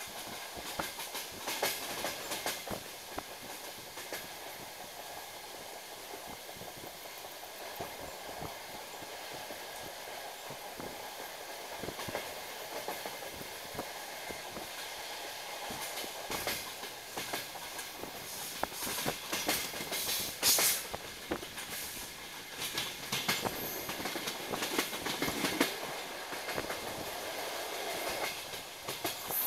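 DR1AMv diesel train running at speed, heard from inside the carriage: a steady rolling noise with the clickety-clack of the wheels over rail joints. The clicks come in runs and are loudest about twenty seconds in.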